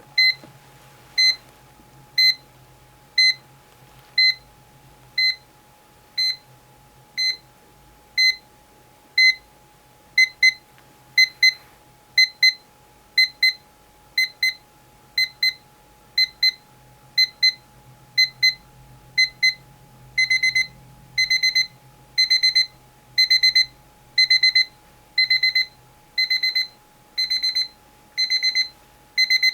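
Seiko KR518 alarm clock's electronic alarm beeping in escalating stages: a single high beep once a second, then double beeps from about ten seconds in, then louder bursts of rapid beeps each second from about twenty seconds in.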